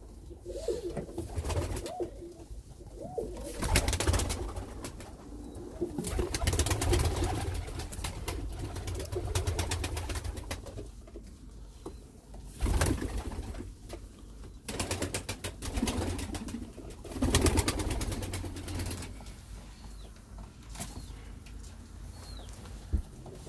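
Domestic pigeons cooing again and again, with several louder spells of rustling and knocking noise over the calls.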